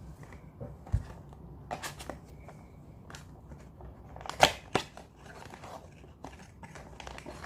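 A gift's packaging being handled and opened by hand: scattered rustles, taps and clicks, with a low thump about a second in and a sharp click about four and a half seconds in.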